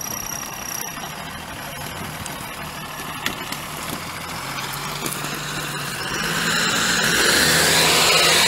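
Tata 715 army 4x4 truck's Cummins diesel engine running at low speed as the truck drives over gravel, getting louder near the end as it comes up close.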